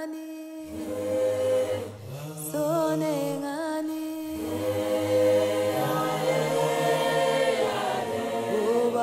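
Background music: a choir singing in close harmony over held low bass notes.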